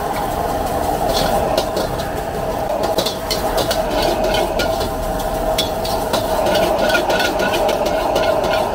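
High-output gas wok burner running with a steady rushing roar, while a metal ladle repeatedly scrapes and clanks against the wok as fried rice and cabbage are tossed.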